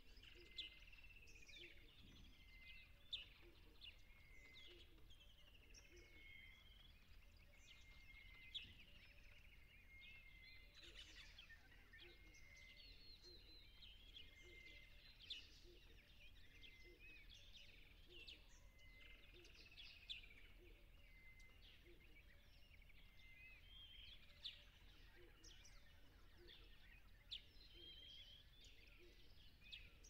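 Faint chorus of small birds: many short high chirps and trills overlapping, with a sharper chirp standing out every few seconds, over a low steady hum.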